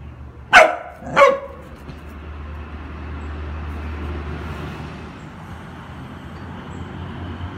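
A dog barks twice in quick succession, two short sharp barks about a second in, during rough play with a kitten. A steady low hum follows.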